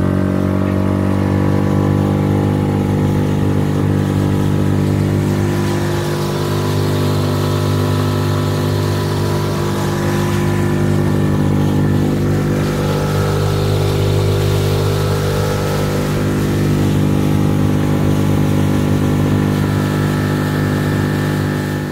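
Small outboard motor running steadily at speed, pushing an inflatable boat across open water, with a hiss of water along the hull. Its pitch climbs slightly as it comes up to speed, then holds steady.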